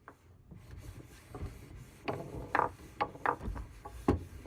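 Foosball table in play: irregular sharp clacks and knocks of the ball and rods, with louder hits about two seconds in and again near four seconds.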